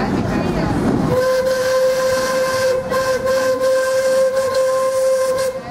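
Narrow-gauge steam locomotive's whistle blowing one long, steady blast of about four and a half seconds, starting about a second in.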